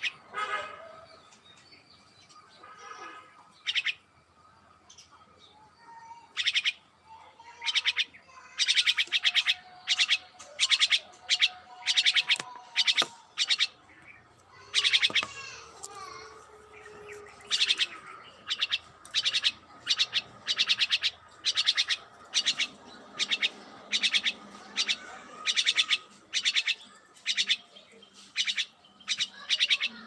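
A myna calling: short harsh calls repeated over and over, a few scattered ones at first, then about one or two a second from roughly eight seconds in.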